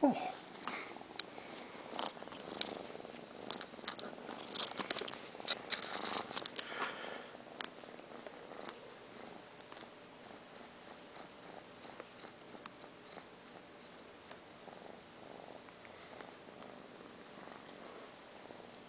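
Domestic cat purring close up, with rustling and sharp clicks over the first several seconds, then an even, faint purr.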